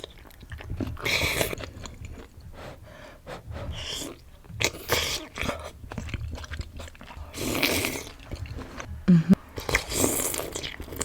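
Close-miked eating of soup dumplings: wet chewing and biting with many small mouth clicks, broken by four louder noisy bursts lasting up to a second each.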